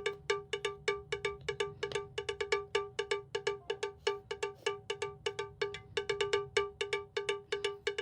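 Background music: a bouncy loop of short, bell-like plucked notes, about four to five a second, mostly on one pitch.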